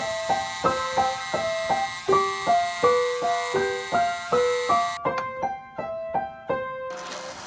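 Background piano music: a light melody of evenly paced single notes, which grows sparser and softer about five seconds in and pauses briefly near the end.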